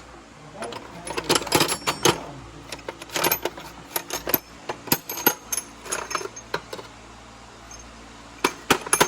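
Metal hand tools (sockets and extensions) clinking and clattering as someone rummages through a toolbox drawer: a busy run of sharp clinks with a short metallic ring that eases off about six seconds in, then a few more clinks near the end.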